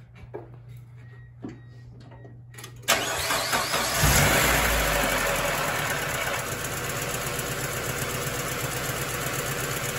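A Mazda Miata NB's four-cylinder engine cranked by the starter about three seconds in. It catches a second later with a brief surge, then settles into a steady idle with lifter tick that is still pretty loud on fresh oil dosed with Seafoam.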